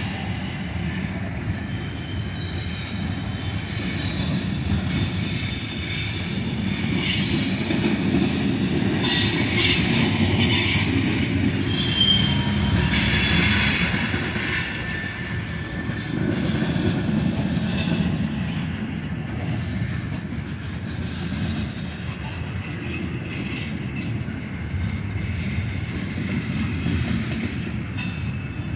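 Freight cars of a mixed manifest train rolling past: a steady rumble of steel wheels on rail, with scattered brief high-pitched wheel squeals and sharp clicks, loudest about a third of the way in.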